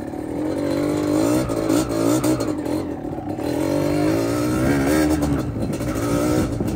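Yamaha DT two-stroke motorcycle engine being ridden, its pitch rising and falling over and over as the throttle opens and closes.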